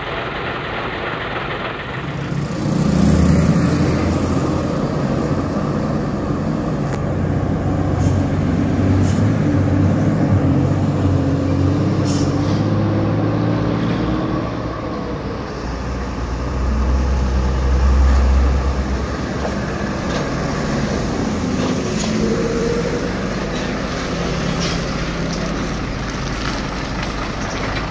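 Heavy diesel trucks passing close by on a highway, the engine sound swelling loudest about three seconds in and again a little past the middle.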